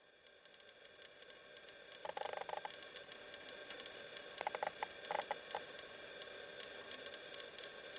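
A steady hum made of several pitches, with two short bursts of rapid clicking: one about two seconds in and another at about four and a half to five and a half seconds.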